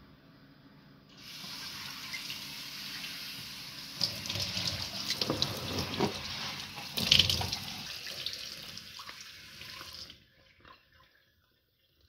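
Kitchen faucet running into a stainless steel sink, the stream splashing off a plastic placemat being rinsed and rubbed under it. The water comes on about a second in, splashes louder and more unevenly in the middle, and shuts off near the end.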